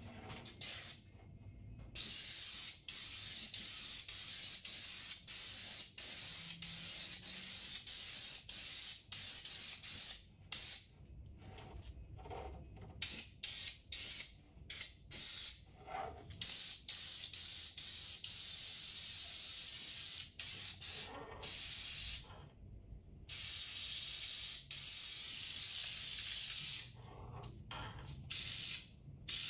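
Compressed-air spray gun with a screw-on can, spraying coating in on-off bursts of hiss. The trigger is pulled in a run of short rapid bursts near the middle and held for a few seconds near the end.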